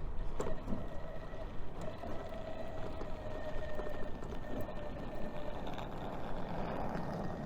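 Steady outdoor street ambience: a low hum of traffic with a faint steady tone running through it.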